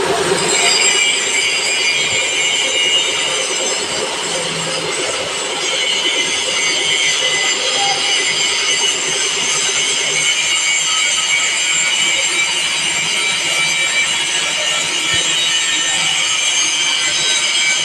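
Milling machine cutter cutting into a workpiece: a steady high-pitched squeal of several tones over the machine's running hum. It starts about half a second in and stops near the end.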